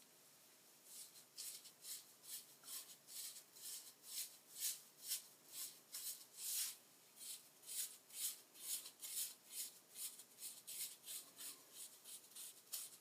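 Hair being backcombed with a teasing comb: quick, faint rasping strokes through the hair, about two to three a second, starting about a second in.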